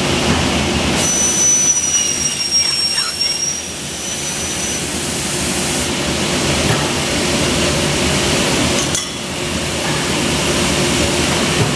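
Okumura UCACHM400-62R automatic-feed carbide circular saw for aluminium profiles running with a steady machine noise and a constant low hum. A high thin whine comes in about a second in and dies away by about six seconds in. The noise dips briefly near nine seconds.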